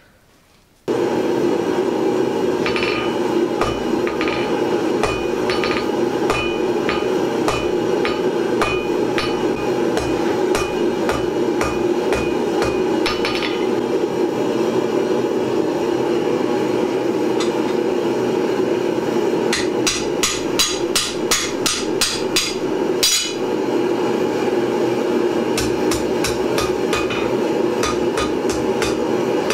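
Hand hammer striking a red-hot 10 mm round steel bar on an anvil, thinning its end into a tenon and upsetting the part below. Spaced ringing blows at first, then a quick run of blows about two-thirds of the way through and another near the end, over a steady loud drone.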